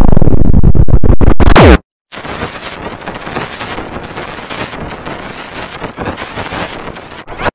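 Digitally distorted audio from a video-effects edit. A loud sound of many tones falls in pitch, stutters with a few brief dropouts, and cuts off just under two seconds in. After a moment of silence comes harsh, crackling, scratchy noise.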